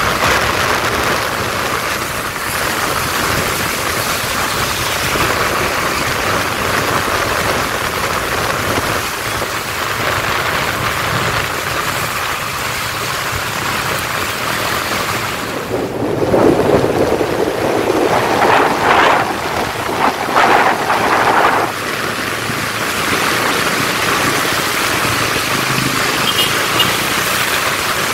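Steady hiss of heavy rain and tyres on a wet road, with traffic running. About halfway through, a louder, uneven stretch of vehicle noise lasts several seconds.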